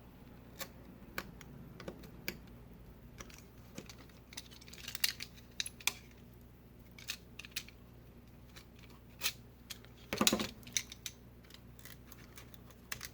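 Scattered light clicks and taps of small tools and tablet parts being handled during an iPad screen repair, with a louder cluster of knocks about ten seconds in.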